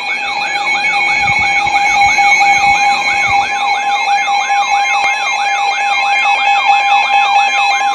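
Emergency Alert System alert signal for a severe thunderstorm warning: a steady tone with a siren-like tone sweeping up and down about two and a half times a second over it.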